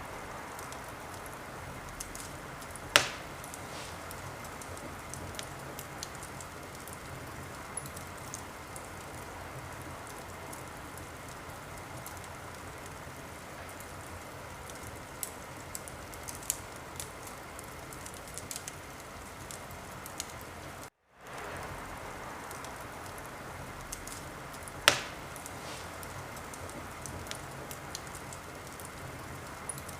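Wood fire crackling steadily, with scattered small pops and two sharp, loud pops, one about three seconds in and one near the end. The sound cuts out for a moment about two-thirds of the way through, then fades back in.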